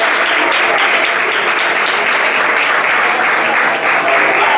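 A congregation applauding: a dense, steady patter of many hands clapping.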